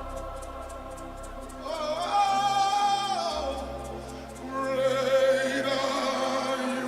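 Live gospel worship music: sustained keyboard chords under a singer's voice, which swells in two long held phrases, about two seconds in and again past the middle.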